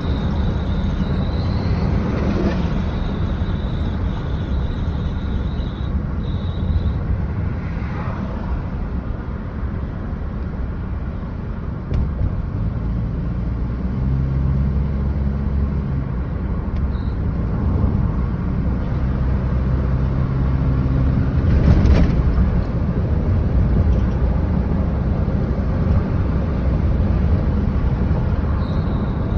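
2004 Toyota Tacoma driving, with a steady rumble of engine and road noise. A thin, high steady tone is heard over the first seven seconds or so. The truck is being recorded for a loud chirp that comes when the throttle is lifted above about 30 mph.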